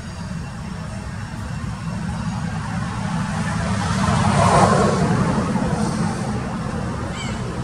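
A steady low rumble with a passing motor vehicle that swells to its loudest about halfway through and then fades.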